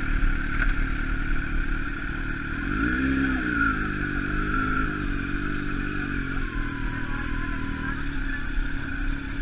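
Sport motorcycle engine running at low speed, with a brief rise and fall in revs about three seconds in.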